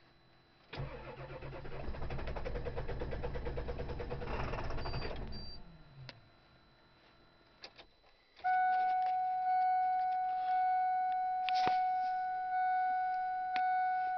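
A diesel car's starter cranking the cold engine for about five seconds without it firing, the cranking slowing and stopping. About three seconds later an electronic warning chime sounds as a steady tone that pulses about once a second.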